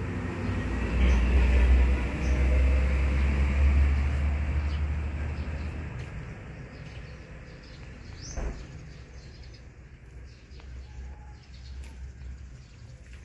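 Birds chirping faintly in an outdoor garden background, with a low rumble on the microphone through the first half and a single knock about eight and a half seconds in.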